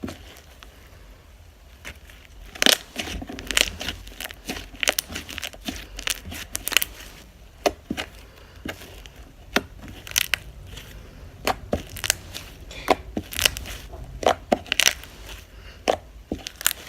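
Jelly cube slime, a thick slime with chopped sponge pieces, being squished and poked by hand. It makes irregular crunchy pops and crackles, several to the second.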